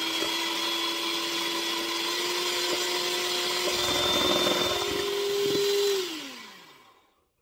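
Electric mixer with twin wire beaters whipping egg whites: a steady motor whine, creeping slightly up in pitch, with a few knocks near the middle. About six seconds in the motor is switched off and winds down to a stop.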